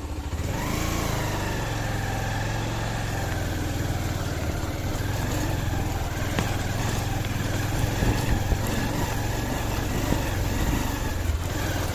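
Motorcycle engine running under way on a rough track. Its pitch rises about half a second in and then holds fairly steady, over a low rumble.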